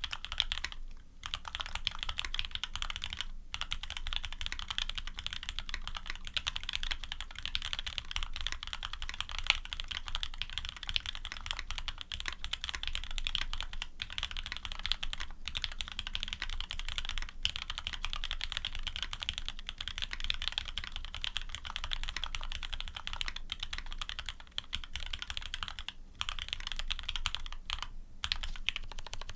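Continuous fast typing on a custom mechanical keyboard with lubed Cherry-top/H1 linear switches, aluminium plate and GMK keycaps, the keystrokes running together into a dense clacking with a few brief pauses.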